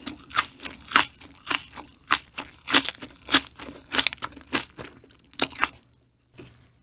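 Close-miked chewing of crunchy food: a steady run of crunches, a little under two a second, that fades out near the end.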